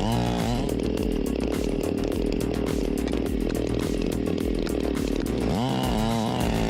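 Chainsaw running, its pitch sweeping up and down near the start and again near the end, steady in between, over background music.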